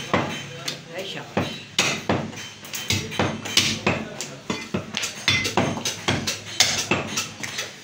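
Meat cleaver chopping mutton shoulder on a round wooden chopping block: a fast, uneven run of sharp chops, about three a second.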